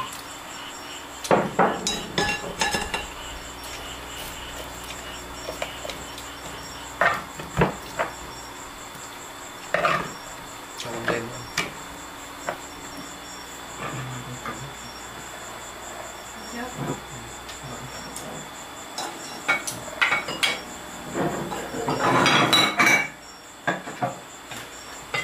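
Bowls and chopsticks knocking and clinking at irregular intervals, with a longer run of clatter about 22 seconds in. Behind it, insects such as crickets keep up a steady high chirping.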